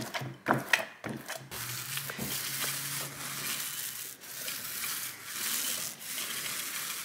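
Paint roller worked in a paint tray with a few sharp clicks, then rolled across a wall, its nap spreading wet paint with a steady rough hiss that swells and fades with each stroke.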